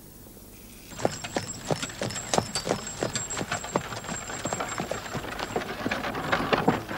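A horse's hooves clip-clopping, a quick irregular run of hoof strikes that starts about a second in.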